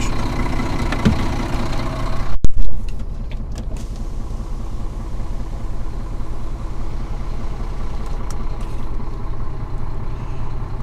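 Scania truck's diesel engine idling steadily, heard from inside the cab. A few loud knocks come about two and a half seconds in.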